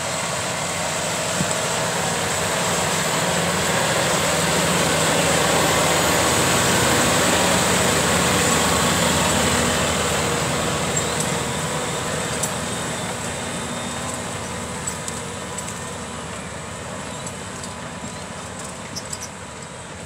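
John Deere 6250R tractor's six-cylinder diesel engine running under load as it pulls a six-furrow reversible plough past, growing louder until about seven seconds in and then slowly fading as it moves away.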